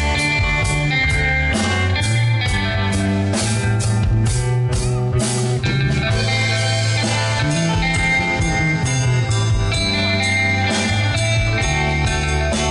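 Live instrumental rock music: electric lead and rhythm guitars over electric bass guitar and a drum kit, with a run of sharp drum hits in the middle.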